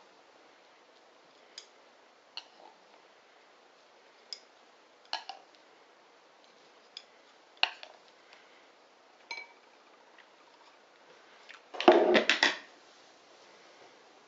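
Light clicks and clinks of tableware and utensils, one every second or two, then a louder cluster of knocks and clatter lasting under a second near the end.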